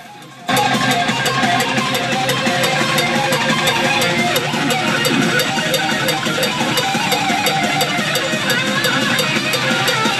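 Loud metalcore band recording with electric guitar, cutting in abruptly about half a second in and playing on steadily, with evenly spaced cymbal-like ticks on top.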